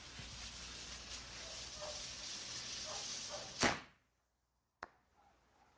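Fuse of a Dominator 2 Day Parachute with Smoke firework hissing and sparking, then a single sharp bang about three and a half seconds in as the shot launches.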